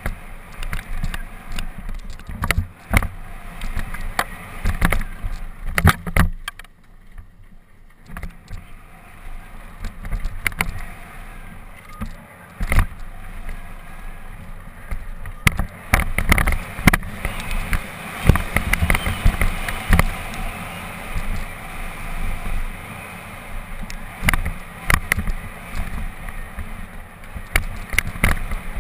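Mountain bike descending a rough dirt singletrack at speed, its frame, chain and suspension rattling and clattering over bumps and rocks over a steady low rumble. The rattling eases for about a second some six seconds in.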